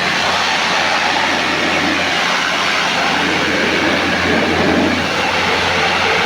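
Steady, loud rushing noise over a constant low electric hum, with no breaks: a mains-powered machine running.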